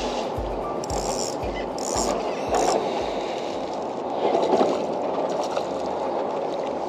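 Steady wind and water rush around an open kayak, with a run of soft low thumps about two a second for the first few seconds and a few short rattling clicks, as a small bream is reeled in on a spinning rod and lifted to the boat.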